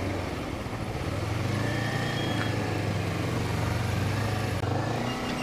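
Honda CBR250RR's parallel-twin engine running steadily as the bike moves between cars in slow traffic, with the noise of surrounding vehicles.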